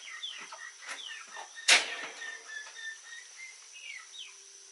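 Small birds chirping in short, repeated falling chirps, with one sharp knock about two seconds in.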